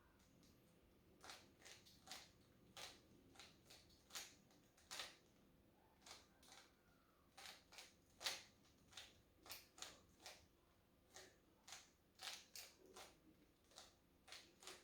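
Rubik's cube layers being turned by hand: faint, irregular plastic clicks, a few every second.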